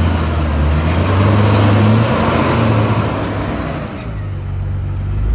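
An off-road vehicle's engine running at low revs, its note stepping up and down, over a rushing noise. About four seconds in the rushing fades and the engine settles to a lower note.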